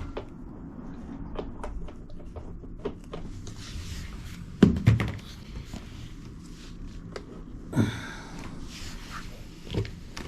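Handling noises from drain pipe work: scattered knocks and thumps, the heaviest about halfway through, with stretches of scraping between them.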